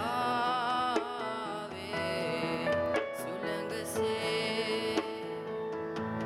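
Live band music: a boy sings a held, wavering line in the first couple of seconds, over piano chords and light hand-drum strokes about once a second.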